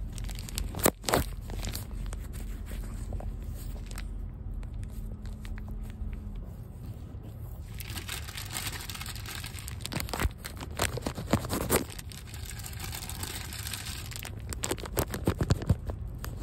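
Clear plastic zip-top bag crinkling and rustling close to the microphone, in dense bursts from about halfway through, with a couple of sharp clicks about a second in.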